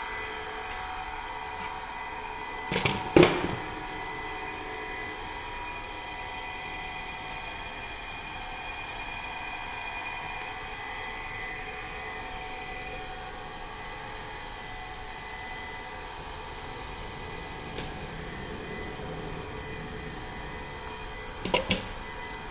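Maruyasu Kikai counter drive roller conveyor running steadily, a motor-driven hum with several fixed whining tones. Two short clusters of sharp clattering knocks, about three seconds in and again near the end, the first the loudest.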